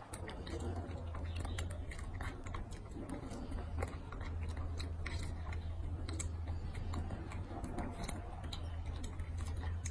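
A baby macaque chewing and biting strawberries: irregular small clicks and smacks of eating, over a steady low hum.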